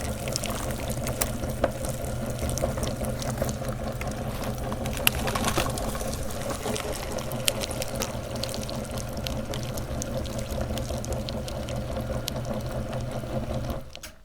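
Electric meat grinder running steadily while grinding candy, its motor humming at a constant pitch with scattered sharp clicks. It switches off abruptly near the end.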